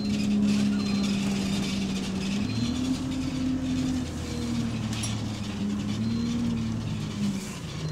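Bus engine and drivetrain running while the bus drives, heard from inside the passenger saloon. The engine note rises about two and a half seconds in, drops back about a second and a half later and rises again near six seconds, over steady road noise.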